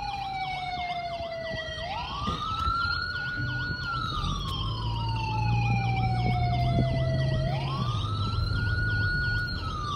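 Emergency-vehicle siren sounds: a slow wail that falls over two to three seconds, then rises quickly and holds, twice, layered over a fast repeating warble. A low steady vehicle hum runs beneath, heard from inside the car.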